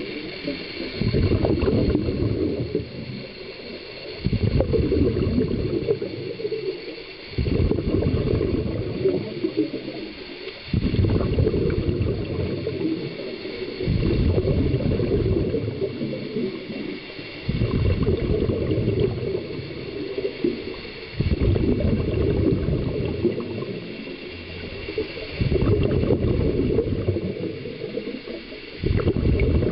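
Scuba regulator exhaust heard underwater: a diver's exhaled breath bubbling out in regular gurgling surges of about two seconds, one every three to four seconds.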